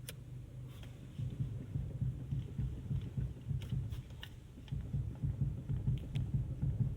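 Car with its engine running: a low, uneven throbbing that gets louder about a second in, with scattered light knocks and clicks over it. This is the unexplained knocking the owner is asking about.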